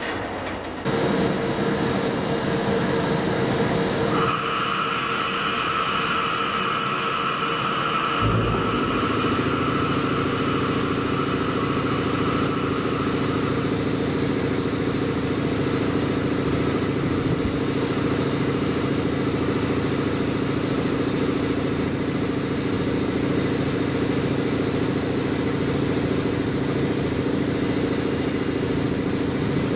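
EF64 1000-series electric locomotive standing with its auxiliary machinery running: a steady mechanical hum with whining tones. The tones shift about four seconds in, and at about eight seconds a thump is followed by a deeper, steady hum as more machinery starts up.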